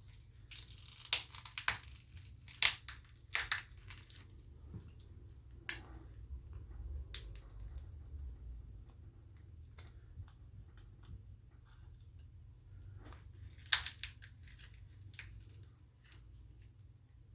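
Small hand tools clicking and scraping against a Samsung Galaxy S8 smartphone as it is taken apart. There is a cluster of sharp clicks and scrapes in the first few seconds and another burst near the end, with faint ticking in between.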